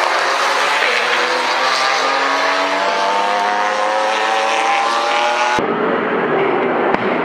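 Race car engine revving up, its pitch rising slowly and steadily for about five seconds. Then the sound cuts abruptly to the steady sound of a group of touring cars running past on the circuit.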